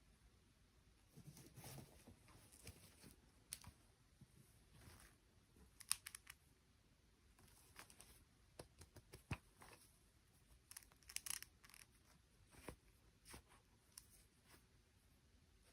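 Near silence with faint, scattered clicks and short rustles of small objects being handled.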